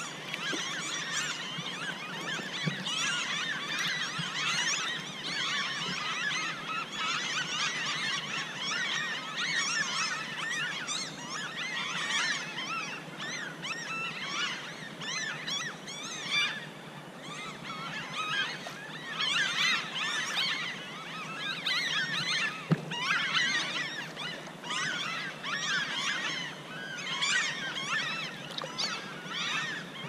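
A dense chorus of many wild animals calling at once, short squeaky rising and falling calls overlapping without a break. A single sharp click stands out about three-quarters of the way through.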